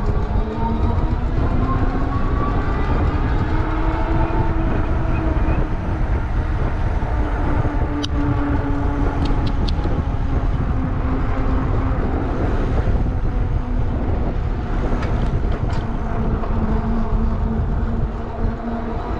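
Engwe EP-2 Pro e-bike under way: its 750 W electric motor whines with a pitch that slides up and down with speed, over heavy wind rumble on the microphone and road noise from the fat tyres. A few sharp clicks come near the middle.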